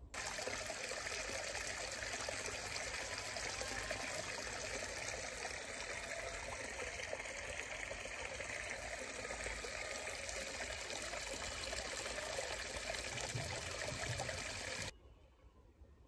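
Shallow stream trickling steadily over stones. The sound cuts off suddenly near the end.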